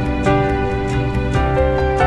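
Soft background music: held notes over a low bass, changing pitch every second or so.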